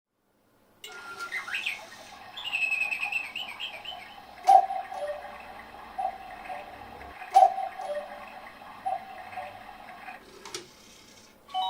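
Engstler quartz cuckoo clock's recorded cuckoo sounding the hour: bird chirps first, then about four two-note cuckoo calls, falling from the first note to the second, about a second and a half apart, with a sharp click at some of them.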